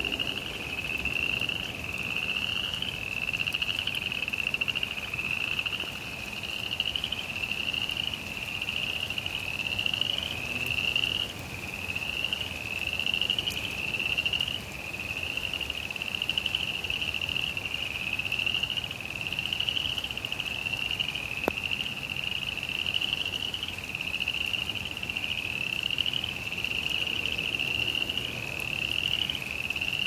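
Frogs calling in a chorus: a steady run of short, slightly rising trills, one after another with hardly a gap.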